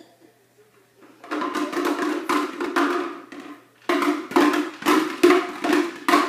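Fast, repeated banging strikes in two runs, like someone drumming on a hollow object. The first run starts about a second in, and the second follows a short pause about four seconds in.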